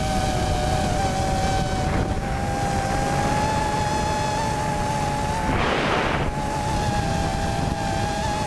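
Quadcopter drone's propellers whining steadily, several close pitches sounding together, with wind rumble on the onboard microphone. A brief gust of wind noise hits the microphone about five and a half seconds in.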